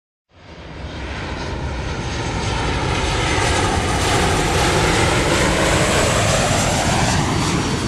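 Commercial airliner passing overhead. Its engine noise cuts in suddenly, swells to a loud peak in the middle and begins to fade near the end, with the engine whine bending down and then back up in pitch as it goes by.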